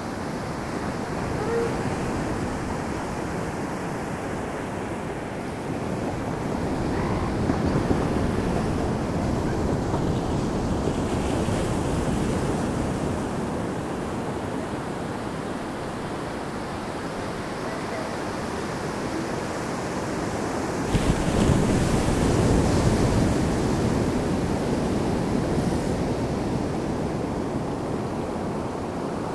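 Surf washing on the beach, a steady rushing noise that swells and eases, with wind buffeting the microphone. A louder stretch of low wind rumble starts suddenly about two-thirds of the way through.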